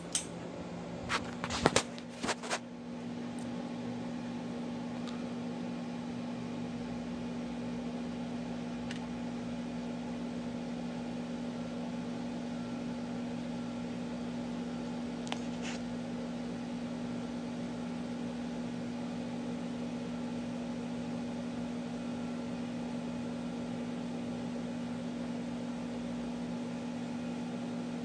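Pull-chain switch of a Harbor Breeze Armitage II ceiling fan clicking several times in the first couple of seconds, then the fan's motor running with a steady hum as the blades turn.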